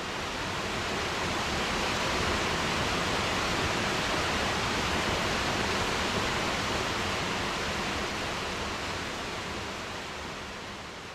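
Waterfall running with a steady rush of falling water, slowly fading out near the end.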